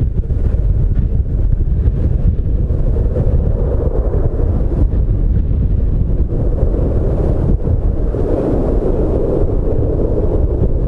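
Twin-engine widebody jetliner at takeoff thrust, a heavy steady rumble from its engines as it rolls away down the runway. Strong gusty wind buffets the microphone throughout.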